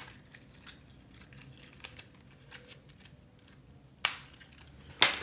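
Pocket knives being handled on a table: scattered light clicks and taps of metal and handles, with two sharper clicks about four and five seconds in.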